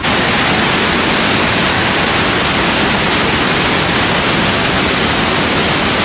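The Rhine Falls' white water rushing over the rocks: a loud, steady, even rush of water.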